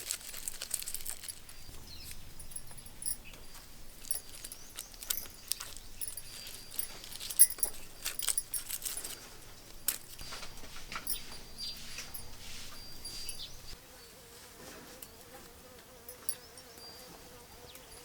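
Insects droning steadily, over many scattered small clicks and knocks; the loudest knock comes about halfway through.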